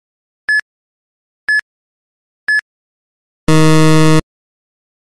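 Quiz countdown timer sound effect: short high beeps once a second, three of them, then a buzzer for under a second about three and a half seconds in, signalling time out.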